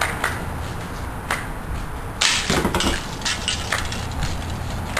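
BB gun shots and pellet strikes: a string of sharp cracks and clicks, the loudest a little past two seconds in, with several lighter ones after, over a steady low rumble.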